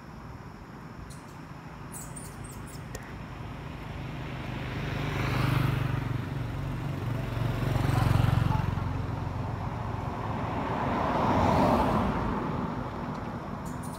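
Road traffic: three vehicles passing one after another, each swelling and fading over a couple of seconds, about five, eight and twelve seconds in.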